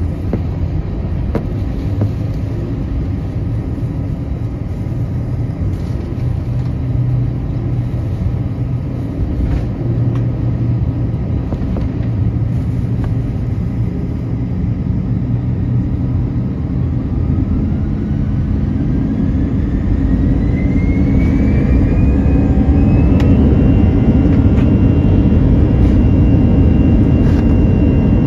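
Airbus A321's jet engines heard from inside the cabin: a steady low rumble while the aircraft moves on the ground, then, a little past halfway, a whine that rises in pitch for several seconds and then holds steady as the rumble grows louder, the engines spooling up for takeoff.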